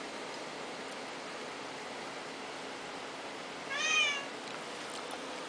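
A domestic cat gives one short meow about four seconds in, rising then falling in pitch.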